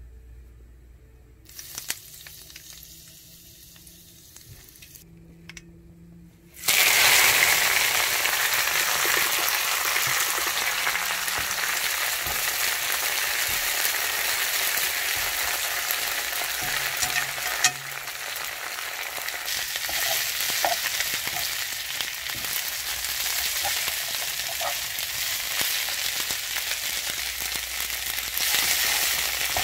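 Shredded perilla leaves frying in a hot pan: a loud sizzle starts suddenly about seven seconds in as the leaves go in, then runs steadily while they are stir-fried with wooden chopsticks. A few faint clicks come before the sizzle starts.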